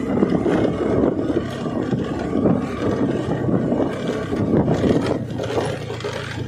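Motorcycle on the move: wind buffeting the rider's microphone over a steady engine note.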